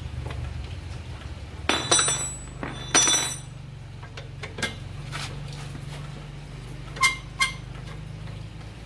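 Metal clinking and clattering in short bursts, then two sharp ringing clinks close together near the end, over a steady low hum.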